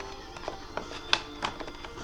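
Quiet background music, with a few short, light clicks over it, the sharpest a little past a second in.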